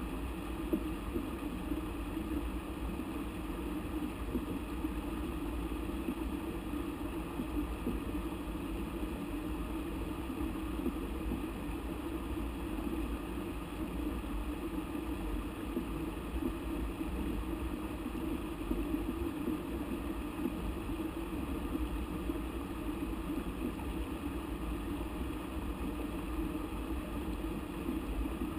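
Steady rushing of a mountain river running over rocks, a continuous low roar with no breaks.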